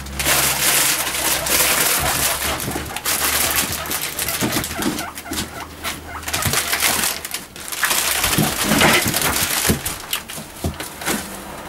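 Guinea pigs moving about on newspaper and hay bedding, with a loud crinkling rustle, and short low coo-like calls now and then.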